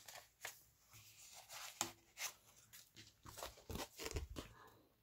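Scrapbook paper and cardstock being handled: a string of short paper rustles, crinkles and light taps, with a few soft thumps about four seconds in as the sheets are moved.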